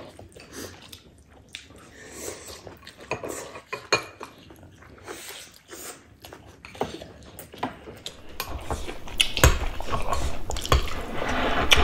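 Spoons and chopsticks clinking and scraping against ceramic bowls during a meal, scattered clicks that grow louder and busier near the end.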